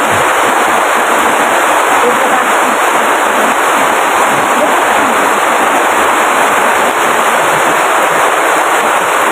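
Heavy rain falling, a loud steady hiss.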